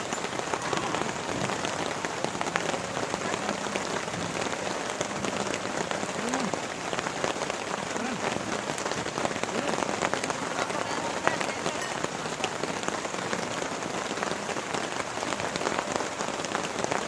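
Heavy rain falling steadily, a dense even hiss dotted with many sharp drop hits close by.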